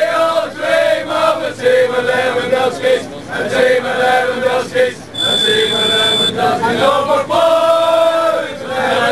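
Crowd of Irish football fans chanting a song together in long held phrases, inside a packed tram car. Midway a high steady beep sounds over the singing for about a second.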